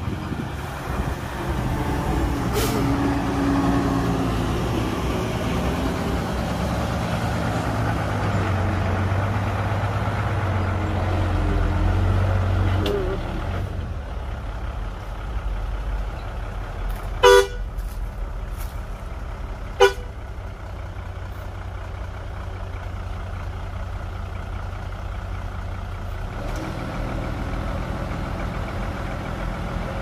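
Heavy diesel engines of a bulldozer and dump truck running, the engine note heavier for the first dozen seconds and then settling lower. A vehicle horn gives two short toots about two and a half seconds apart, a little past halfway through.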